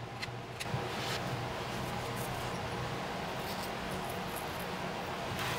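Food sizzling in a hot pan: a steady hiss with a few faint crackles.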